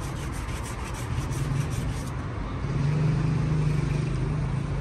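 Street traffic noise with a motor vehicle's engine humming steadily, louder for a second or two about three seconds in. During the first two seconds there are quick, evenly spaced scratching strokes, about five a second.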